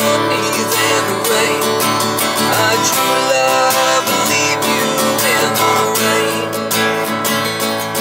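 Cutaway acoustic guitar strummed steadily, chords ringing under a regular strumming rhythm.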